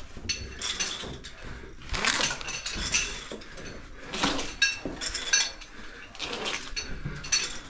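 Rustling and scraping of a caver's clothing and gear against rock in a tight passage, with light metallic clinking of climbing hardware, coming in irregular bursts about once a second.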